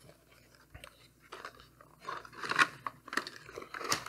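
Knife box and packing material being handled and opened: irregular rustling, crinkling and scraping, sparse at first and busier and louder from about two seconds in.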